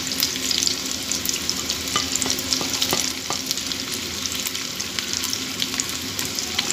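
Vetki (Asian sea bass) steaks shallow-frying in oil in a nonstick pan: a steady sizzle full of fine crackling pops, as the second side fries. A spatula works in the pan, spreading masala over the fish, with a few light taps about two to three seconds in.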